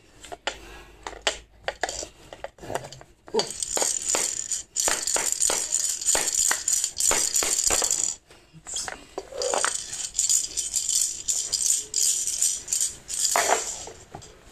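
Rattling and shaking in fast bursts, with many sharp taps; the rattle stops for about a second around the eight-second mark and then starts again.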